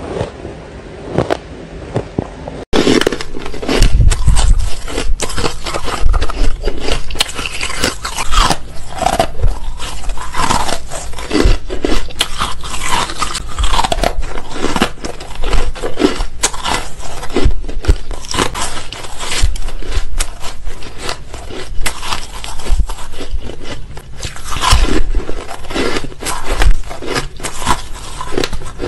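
Close-up biting and chewing of dry, frost-coated ice: a dense run of crisp crunches and crackles, softer for the first few seconds and louder after that.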